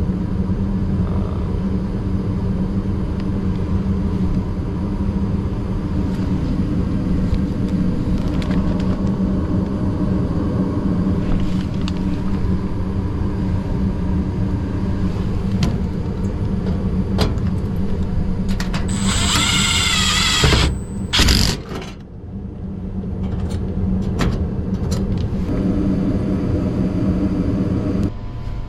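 Gas furnace running with a steady low hum and whir. About two-thirds of the way through a brief warbling high tone sounds, and the hum breaks off for a moment before building back up.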